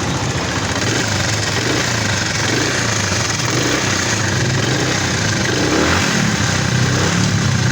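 Honda CD70's 72 cc single-cylinder four-stroke engine running steadily with a clattering timing-chain noise, the sign of a soft or missing cam-chain tensioner spring letting the chain run slack.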